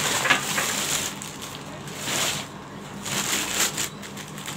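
Thin plastic wrapping crinkling and rustling in several short bursts as it is pulled off and handled.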